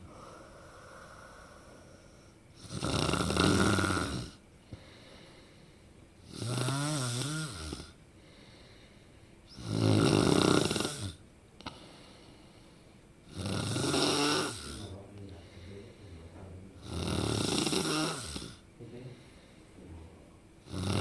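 A person snoring in a slow, regular rhythm: five loud snores about three and a half seconds apart, some with a wavering, tuneful pitch.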